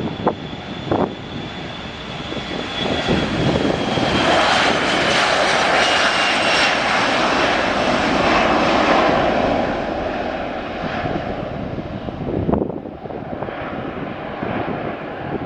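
A fixed-wing airliner passes close by. The rush of its engines swells to a peak a few seconds in and then eases off, while a high whine slowly falls in pitch. There are a few short thumps near the start and again near the end.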